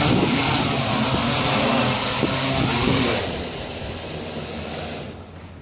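Hexacopter's six electric motors and propellers whining and buzzing in flight, loud for about three seconds, then fading, with the high whine stopping near the end.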